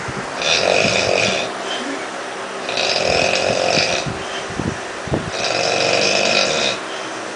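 A sleeper snoring loudly: three long snores, each about a second long, coming roughly every two and a half seconds.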